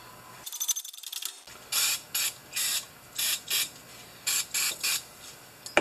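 A run of about eight short hissing bursts, roughly two a second, beginning about two seconds in after a faint crackle.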